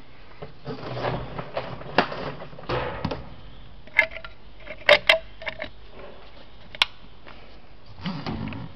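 Handling noise from a cordless jigsaw and its plastic dust-extraction hose: rustling and knocking, with several sharp plastic clicks in the middle, two of them close together. The saw's motor does not run.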